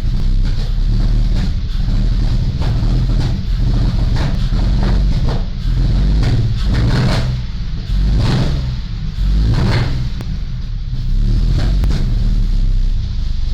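2005 Mustang's 4.0 L V6 running roughly, its revs rising and falling a few times around the middle. This is the uneven idle and surging revs of an engine that has run badly since a cold-air intake and tune, with a known exhaust leak.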